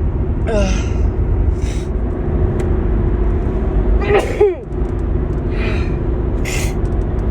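A woman sneezing: a short gasping catch of breath about half a second in, then a full sneeze about four seconds in, with breathy sniffs in between and after. The sneezing fits she suspects a grass pollen allergy. A steady low hum runs underneath.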